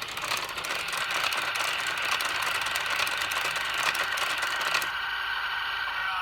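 DX Zenkai buckle toy belt playing its rapid-fire sound effect: a fast stream of electronic shots that gives way about five seconds in to a steady held tone.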